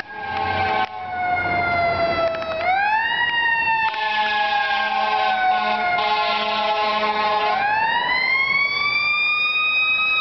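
A fire truck's Federal Signal Q2B mechanical siren, its pitch sliding slowly down as it coasts. It is wound up again about two and a half seconds in and again near eight seconds, each time rising quickly and then sinking back.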